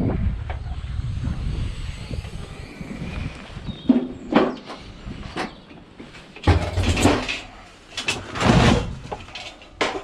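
Scrap metal and cable being loaded into the back of a van: a low rumble at first, then repeated clattering knocks and rattles from about four seconds in.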